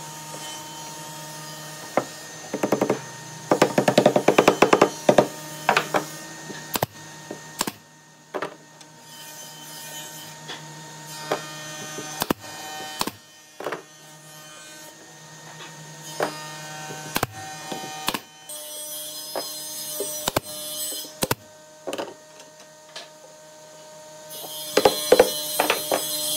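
Woodworking tools at work on wood: a power tool's motor hums steadily under many sharp knocks and taps, with a quick run of them about three to five seconds in. A hissing, rougher sound comes in twice in the second half, the second time near the end.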